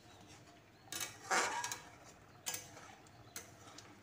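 Metal spatula scraping and knocking against a metal kadhai while stirring curry gravy: a longer scrape about a second in, then two short knocks.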